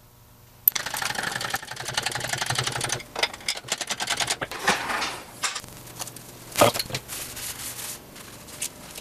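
Hand-tool work on the engine: a fast run of rattling clicks starting just under a second in and lasting about two seconds, then irregular clicking and a few sharp knocks.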